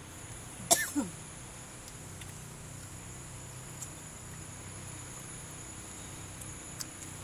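A short, sudden vocal burst like a cough, falling in pitch, about a second in, over a faint steady high whine with a low hum. A couple of faint clicks follow later.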